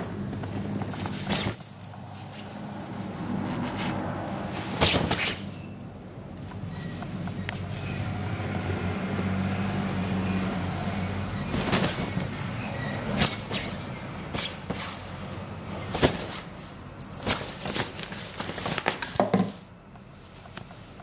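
A small bell on a feather wand cat toy jingling in repeated bursts, over the rustle and crinkle of a fabric cat play tunnel being jostled.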